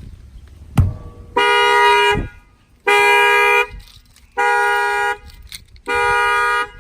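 A sharp knock, then a 2018 Honda Accord's factory alarm going off: the car horn sounds four times in even pulses, each about three-quarters of a second long. The knock has set off the added shock sensor.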